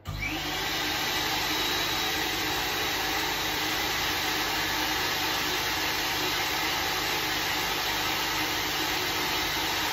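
Dog grooming dryer switched on at its low setting: the motor spins up with a rising whine in the first second, then runs with a steady rush of air.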